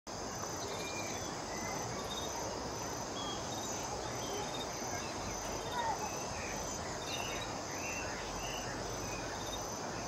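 A steady, high insect chorus of shrill trilling, with many short chirps and whistles from birds scattered through it.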